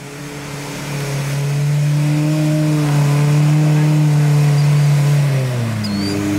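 Pickup truck engine held at steady high revs while driving through mud. It grows louder over the first two seconds, and the revs drop about five and a half seconds in.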